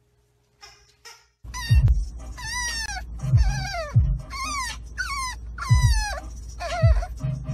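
French bulldog puppy whining: a run of about six high cries, each falling in pitch, starting about a second and a half in. Low thumps sound under several of the cries.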